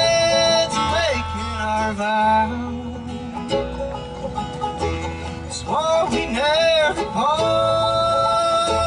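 Live bluegrass band: a man singing lead, with a long held note at the start and another in the second half, over acoustic guitar, banjo, mandolin and upright bass.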